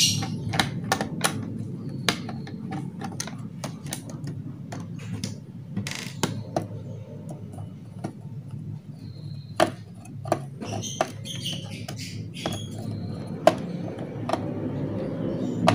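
Small tester screwdriver working screws out of a Toshiba Satellite L840 laptop's plastic chassis: irregular light clicks and ticks, a few sharper ones, over a low steady hum.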